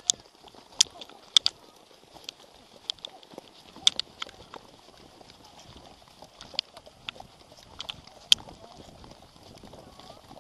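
Sharp, irregular clicks and clatter from a ridden horse, its hooves and tack, over a faint low rustle.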